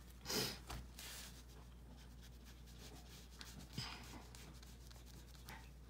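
Faint scratching of a Sakura Koi brush marker tip on colouring-book paper as small areas are coloured in. There is a brief louder rustle about half a second in and a soft click just before the four-second mark.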